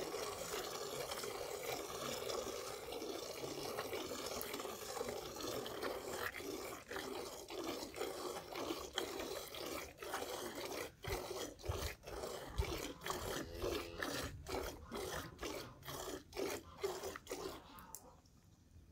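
Cow being milked by hand: jets of milk squirting into a metal pail, settling into a regular rhythm of about two squirts a second in the second half, then stopping shortly before the end.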